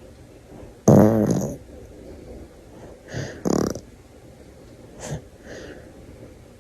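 A baby's short throaty noises: a loud one about a second in, two close together around three seconds, and a fainter one near five seconds.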